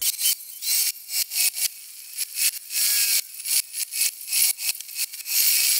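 Paint spray gun hissing in rapid, irregular short bursts as primer is sprayed into a stripped car engine bay.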